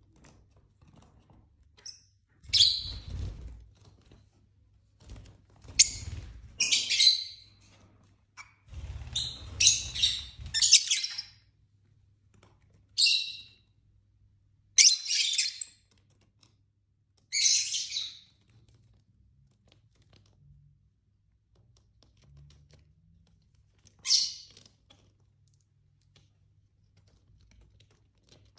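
Lovebirds giving short, shrill chirps and squawks in about eight separate bursts, crowded together in the first half and sparser later. The first few bursts come with low thumps and rustling.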